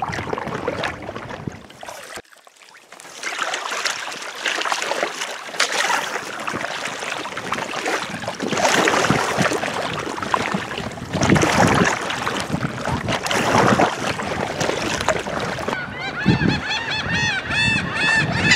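Paddle splashes and choppy water slapping an inflatable kayak, with wind noise. About sixteen seconds in, birds start calling with quick, repeated high calls.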